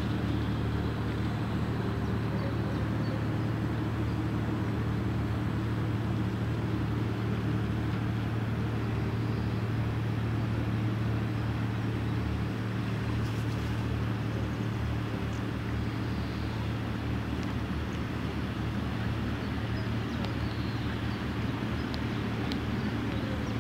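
Diesel engine of an inland motor cargo ship passing close by, a steady low drone.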